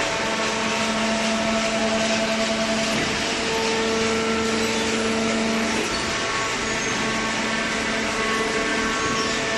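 Hydraulic baler running steadily: a continuous mechanical noise with a few steady hum tones that shift about three and six seconds in.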